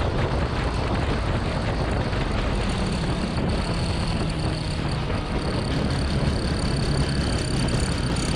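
Motorcycle running at speed on a race track, its engine and wind noise blended into a dense, steady sound. A thin high whine joins about halfway through.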